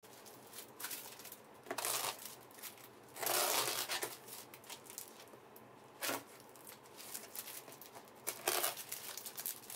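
A blade slicing through packing tape and plastic wrap on a cardboard box, with the plastic crinkling and tearing in a few short rasps; the longest cut comes about three seconds in.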